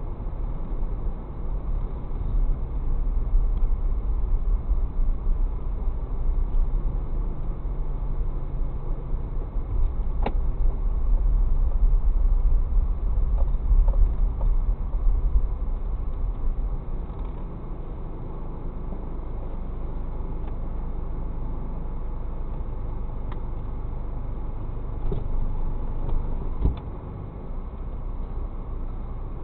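Low rumble of a car driving slowly, heard from inside its cabin: engine and tyre noise that swells for a few seconds in the middle, with a sharp click about ten seconds in and another near the end.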